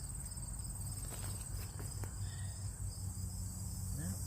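Crickets trilling steadily, a continuous high, finely pulsing chirr, with a few faint knocks and a low steady hum beneath.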